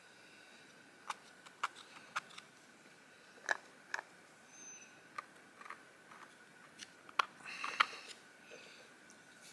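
Faint, scattered clicks and scrapes from a stone disc with a centre hole, a pump drill flywheel, being handled and worked in the hands, with a short scraping rustle near the end.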